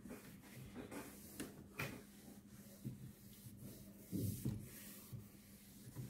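Faint rubbing of a dry cloth wiped over the plastic walls of a refrigerator's interior, with a few soft knocks, the strongest about four seconds in.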